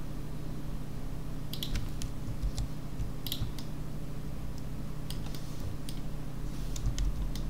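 Irregular clicking of a computer keyboard and mouse, over a steady low hum.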